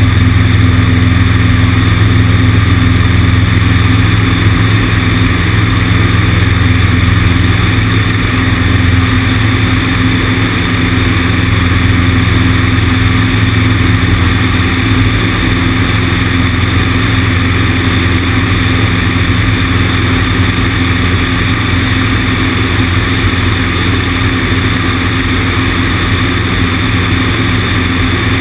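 Cessna 150's four-cylinder Continental O-200 engine and propeller running at a steady power setting in flight. Heavy wind rush buffets the wing-mounted camera.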